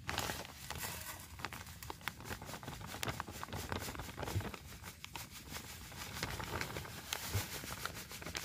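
Dry powdered fishing bait pouring from a zip-lock plastic bag into an aluminium basin: a soft hiss of falling grains with the bag crinkling and small pattering ticks.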